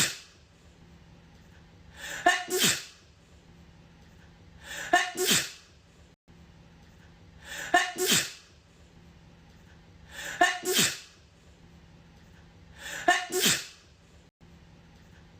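A woman sneezing, the same two-part 'ah-choo' repeated identically about every 2.7 seconds as a loop, five times.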